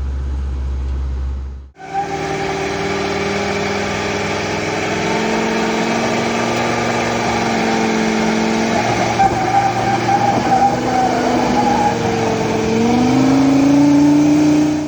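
A 1999 Ford 6.8-litre V10 truck engine running under load, its pitch rising and falling with the throttle and climbing near the end. Before that comes a short steady low hum of the truck driving, broken off about two seconds in.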